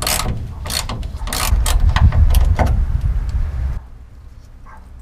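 Extendable ratchet clicking in repeated strokes as it is worked on a rusty 18 mm truck-bed bolt. The clicking stops after about three seconds, over a low rumbling noise that cuts away shortly after.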